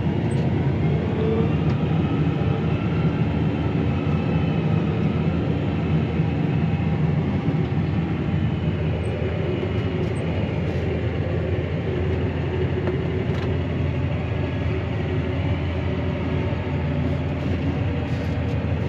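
Claas Arion 650 tractor's six-cylinder diesel engine and drivetrain running steadily under load, heard from inside the cab, as it drives over a grass silage clamp to compact it. Its pitch rises and falls slightly as the tractor works.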